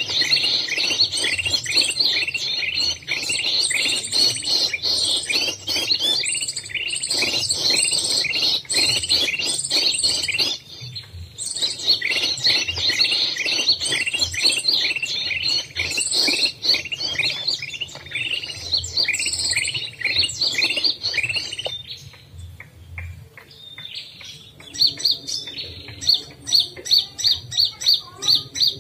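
A dense chorus of small birds chirping rapidly, breaking off about three-quarters of the way through. Near the end it gives way to a regular run of sharp calls, about two a second.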